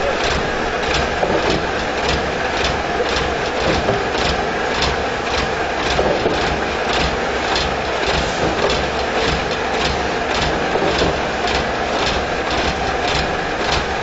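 Truck-mounted concrete mixer pump running under load: a steady engine drone with a regular mechanical clatter, roughly two to three knocks a second.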